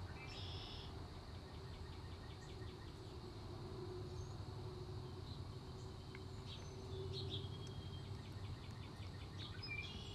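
Faint outdoor ambience: small birds chirping, with two rapid ticking trills, over a low steady rumble and a thin steady high tone.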